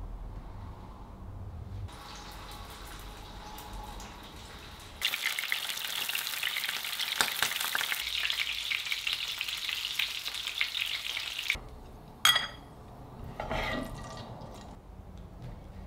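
Filled pastry rolls frying in shallow oil in a pan, their first frying, turned with chopsticks: a dense crackling sizzle that comes in faintly, turns much louder about five seconds in and stops abruptly past the middle. Shortly after, a single sharp clink, followed by a little fainter clatter.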